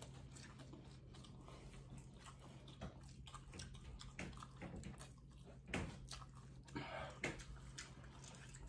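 Faint mouth sounds of people chewing spicy meatballs: small wet clicks and smacks, with a few louder ones in the second half. A low steady hum lies underneath.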